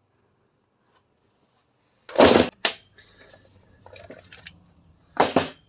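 Two loud clattering knocks about three seconds apart, hard objects being handled and set down on a workbench, with a small click and faint handling noise between them.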